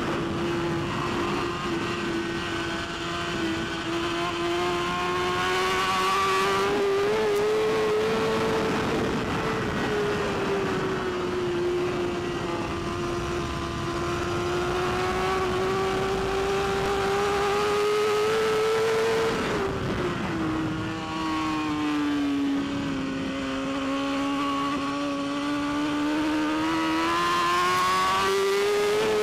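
BMW S1000RR superbike's inline-four engine at race pace, heard onboard. The engine note climbs slowly in long pulls and drops sharply twice, near the start and again about two-thirds of the way in, as the bike slows for corners, then climbs again under acceleration.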